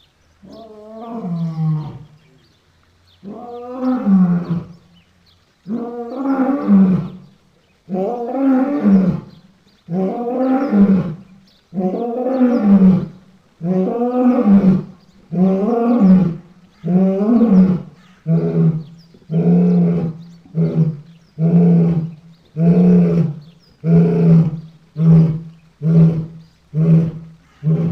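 Lion roaring bout: a few long, full roars, then a run of shorter grunting roars that come closer and closer together, about one a second by the end.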